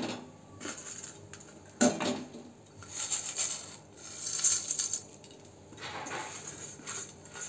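A steel plate knocking and clinking against a metal kadai, with a sharp knock about two seconds in, while broken instant noodle pieces are tipped off it into boiling water with a brief rustling patter.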